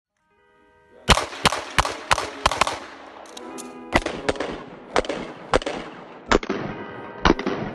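Custom 2011 USPSA Open pistol firing: a quick string of about six shots, roughly three a second, then about six more shots spaced further apart. Background music plays underneath.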